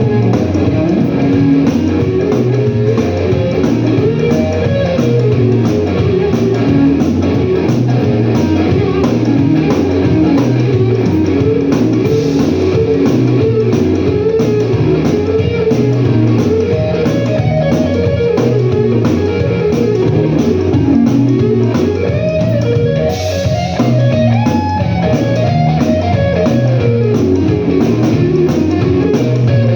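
Blues-rock band playing live without vocals: an electric guitar plays a lead line over a steady, repeating bass line, the guitar climbing higher in the second half.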